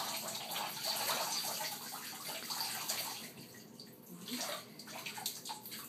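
Water pouring from a plastic toy watering can into a bathtub, a steady splashing stream that fades out about three seconds in, followed by a few small splashes.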